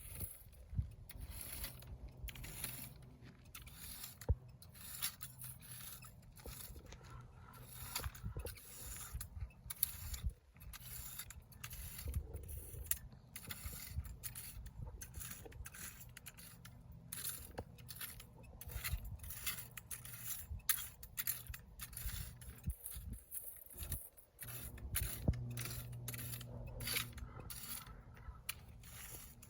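Yard work on dry desert ground: many irregular scraping and rustling strokes, with a low steady hum underneath.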